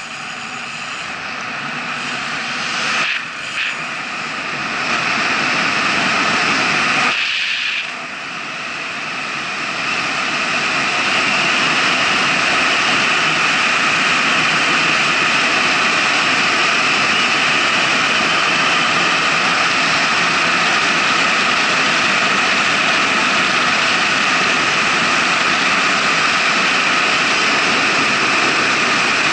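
Wind rush and tyre noise of a mountain bike descending fast on asphalt, picked up by the rider's action camera: a steady rushing hiss that builds as the speed climbs to about 50 km/h, dipping briefly about three and seven seconds in, then holding.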